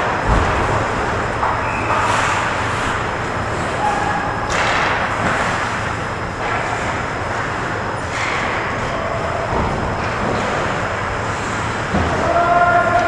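Ice hockey rink during play: a steady hum and hiss of the arena with skates scraping on the ice and the odd clatter of sticks and puck. Near the end a held, pitched tone begins.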